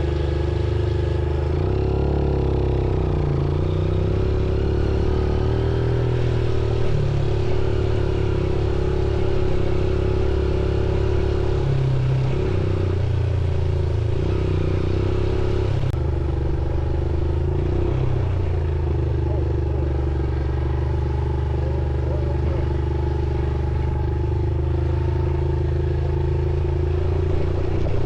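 Motorcycle engine running at a fairly steady pitch while riding, with only small changes in throttle.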